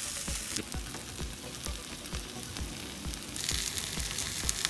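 Takoyaki batter frying in oil in the wells of an electric takoyaki plate: a steady sizzle whose hiss thins a little about three seconds in. Background music with a steady beat plays under it.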